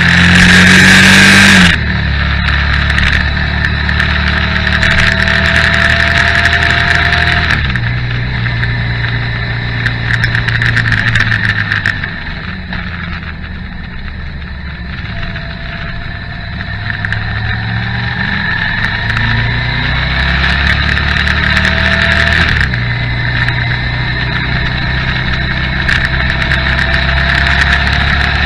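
Motorcycle engine running under way on a winding mountain road, with wind rush on the microphone, its pitch rising and stepping with throttle and gear changes. A loud rush in the first two seconds as another motorcycle rides close alongside; quieter around the middle while slowing through a hairpin, then pulling away again.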